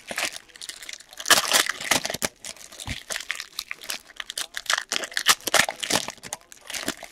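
Foil trading-card pack wrappers crinkling and crackling in the hands as the packs are torn open, an uneven run of sharp crackles.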